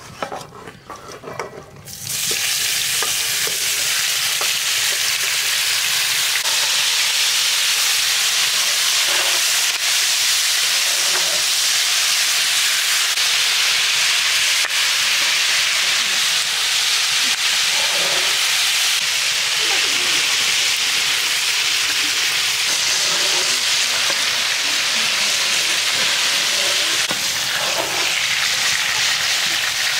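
Marinated chicken pieces dropped into hot oil in a large iron pan: a loud, steady sizzle starts suddenly about two seconds in and keeps going as the chicken fries, with occasional faint scrapes of a metal spatula stirring it.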